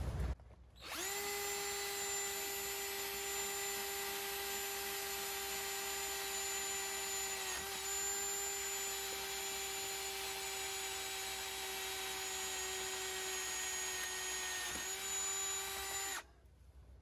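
Bauer 20V cordless drill running at a steady whine as it bores a bolt hole through the steel tube of an ATV spreader mount. The pitch dips briefly twice, once about halfway and again near the end, and the drill stops about a second before the end.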